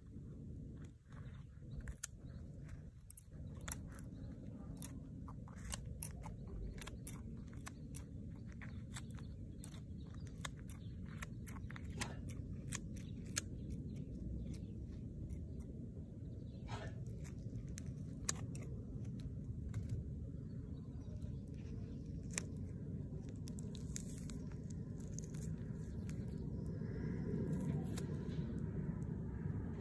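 Small scissors snipping and crunching into a shrivelled red chilli pepper pod: a quick run of crisp clicks over the first half, then sparser snips and handling as the pod is pulled open. A steady low rumble lies underneath and grows a little louder near the end.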